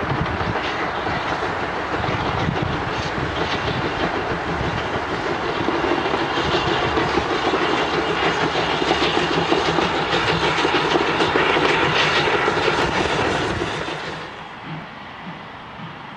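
Steam locomotive hauling a passenger train past, working steadily with heavy exhaust, its sound swelling for a while. It cuts off abruptly about two seconds before the end, leaving a quieter outdoor background.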